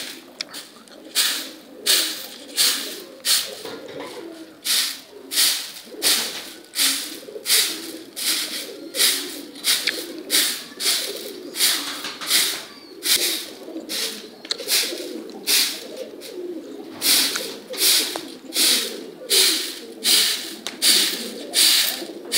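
Flock of domestic pigeons cooing continuously. Over it, a short rasping swish repeats about one and a half times a second, louder than the cooing.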